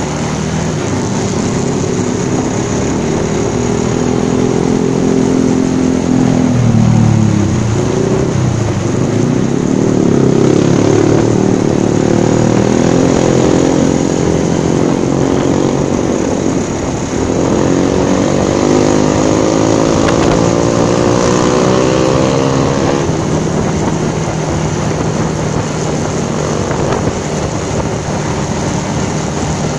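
Bajaj Pulsar 220's single-cylinder engine accelerating through the gears. The revs climb, drop sharply at upshifts about 7 and 17 seconds in, climb again, then hold steady at cruising speed.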